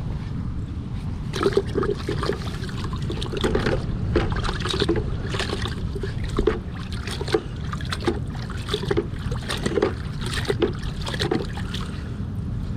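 River water splashing and trickling in irregular short spatters over a steady low rumble of wind on the microphone.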